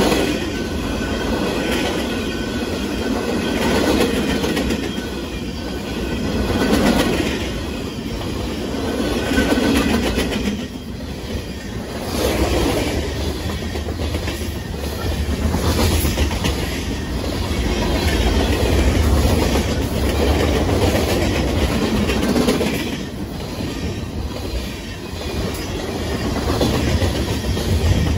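Freight cars of a BNSF manifest train rolling past at a grade crossing. The steady rumble swells and eases every few seconds.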